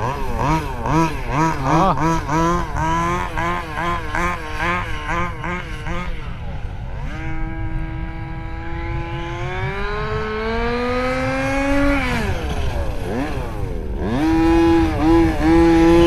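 Small two-stroke petrol engine of a 1/5-scale gas RC buggy, revving in repeated quick throttle blips for several seconds, then held on throttle with its pitch climbing. It drops away about twelve seconds in and comes back up strongly near the end.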